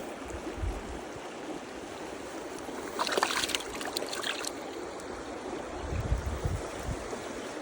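Steady rush of river water, with wind buffeting the microphone near the start and near the end, and a short burst of splashing about three seconds in.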